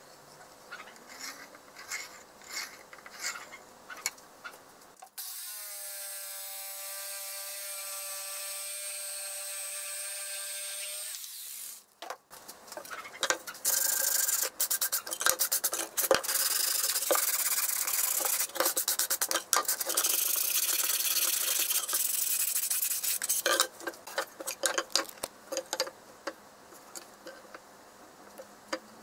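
Light scratching and ticking of a compass and pencil on a pine board, then a power tool's motor running at a steady pitch for about six seconds. After it stops, a pine board is sanded by hand with a sanding pad in brisk rubbing strokes for about ten seconds, and near the end a ruler and pencil tick lightly on the wood.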